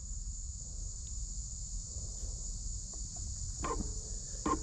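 Steady high-pitched chirring of insects in summer woods over a low rumble, with two short faint sounds near the end.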